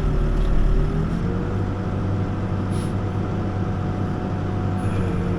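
Backhoe's diesel engine running steadily, heard from the operator's seat, its note shifting about a second in as the load changes. Two short high hisses come near the middle and near the end.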